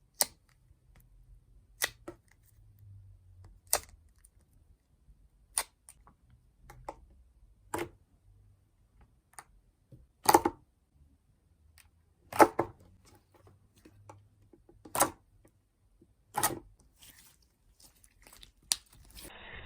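Homemade purple slime pressed and folded by hand, giving sharp pops about every two seconds between faint soft squishing.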